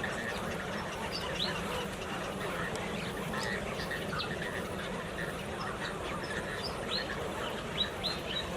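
A large flock of birds calling together: a dense mass of overlapping calls, with many short high chirps scattered through it.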